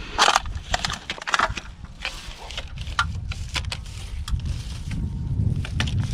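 Fishing rod butt being jabbed down into stony ground among grass: crunching, scraping and sharp clicks, loudest in the first second and a half, then lighter clicks.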